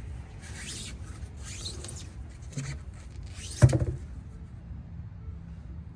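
Rubbing and scraping three times, then a single sharp clunk about three and a half seconds in, as the spare wheel is handled and fitted onto the car's hub.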